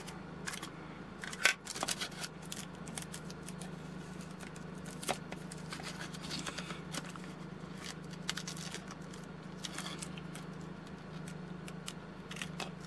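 Scattered light clicks and taps of hobby tools handled on a cutting mat while a craft knife trims a tape hinge, with a sharper click about a second and a half in. A low steady hum runs underneath.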